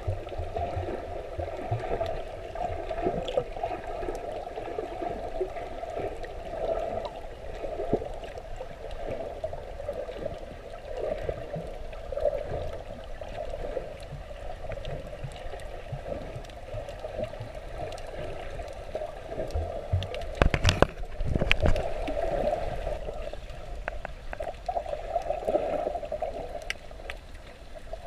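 Muffled water sloshing and gurgling heard underwater through a waterproof camera, with a burst of sharp knocks about twenty seconds in.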